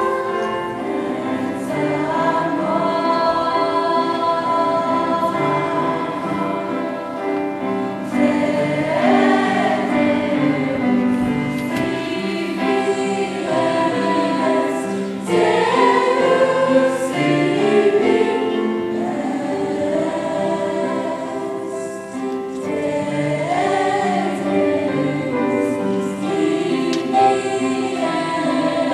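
A choir singing in several voice parts, holding sustained chords that change every second or so. The sound swells louder about eight and fifteen seconds in.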